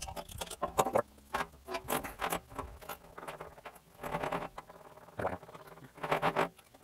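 Irregular clinks, rattles and scrapes of metal being handled as the Mathey Dearman pipe beveler is repositioned and set up on a steel pipe, coming in short uneven clusters.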